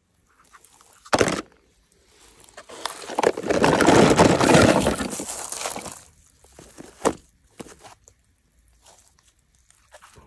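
Close handling noise from hands and a plastic toy tub on dry grass and leaves: a sharp knock about a second in, a swelling rustle for a few seconds, then a few light clicks.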